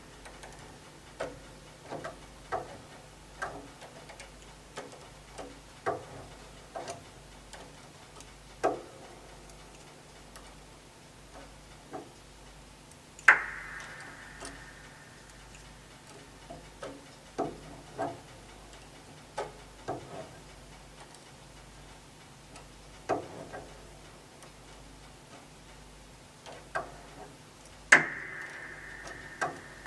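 Irregular small clicks and taps of hand work on a grand piano's damper parts, with two louder sharp strikes that ring briefly, one about halfway through and one near the end.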